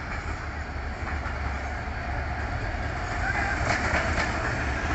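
EMD GT42AC diesel-electric locomotive hauling a passenger train slowly past: a steady low engine rumble with the wheels clacking over the rail joints. It grows a little louder in the second half, with a few sharper clacks as it draws level.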